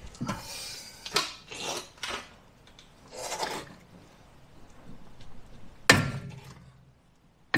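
A spanner being forced against a seized tie rod end locking nut, freshly heated with an induction heater: a few short scraping strains, then one sharp metal clank with a brief ring about six seconds in, and a click at the end.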